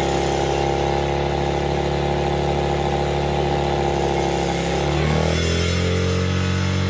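Dirt bike engine idling steadily close to the microphone, its pitch shifting briefly about five seconds in.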